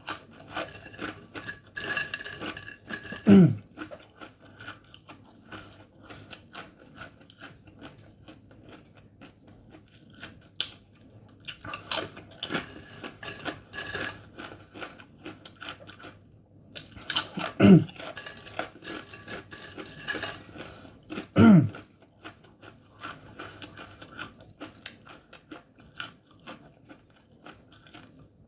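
Crunching and chewing of dry corn chips eaten quickly, many small crackling bites. Three short, loud hiccups that drop in pitch break in, one about three seconds in and two more past the middle.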